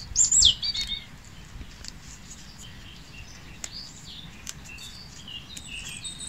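Small birds chirping, with one loud falling chirp near the start and scattered short chirps after it. Faint ticks and rustles of rosemary needles being plucked from the sprig into a steel bowl.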